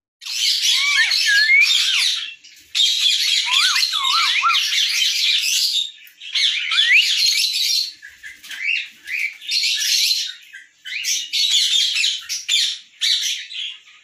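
Many parrots screeching and chattering at once, dense overlapping calls in loud spells with brief pauses, becoming choppier about halfway through.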